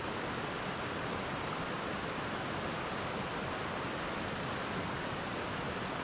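Water rushing through a creek's rapids and small waterfall: a steady, even rush with no breaks or separate events.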